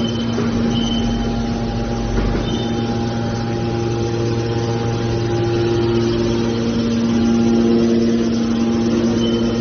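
Hydraulic scrap-metal baler running: a steady machine hum with several held tones, one of which fades in about four seconds in and shifts again near the end.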